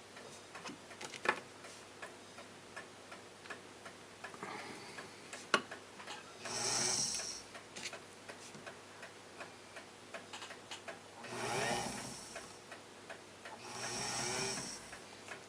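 Faint, irregular small ticks and clicks throughout, with three soft breathy rushes of air at about seven, eleven and a half, and fourteen seconds in.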